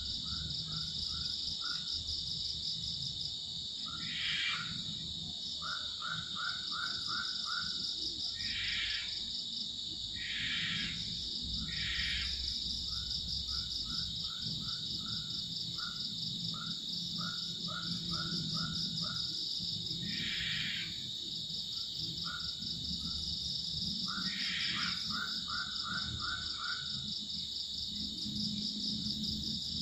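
Night-time chorus of insects such as crickets: a steady high buzzing, with rows of quick chirping trills repeating every few seconds and occasional short lower calls.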